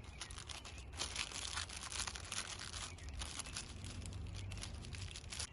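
Crinkling and rustling from close-up handling, a dense run of many small crackles.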